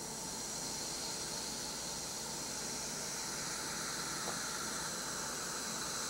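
Diet Coke fizzing in a glass beaker as powdered Mentos candy shell makes it foam up slowly: a steady, quiet hiss that grows slightly louder, with a faint tick about four seconds in.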